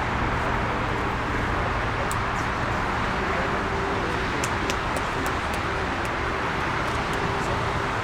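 Jet airliner engines running: a steady rushing noise with a faint held hum under it.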